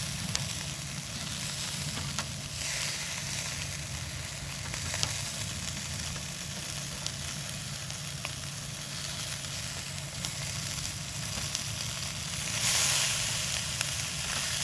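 Food sizzling in a hot pan, a steady hiss with scattered small pops and crackles that swells briefly twice.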